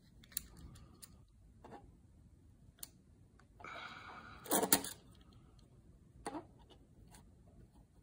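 Light clicks and taps of a digital vernier caliper being handled and set against the metal bottom bracket cup, with a short scraping rasp followed by the loudest click a little past halfway, and another click about a second and a half later.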